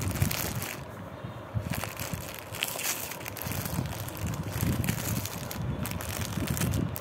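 Clear plastic packaging crinkling and crackling irregularly as it is handled.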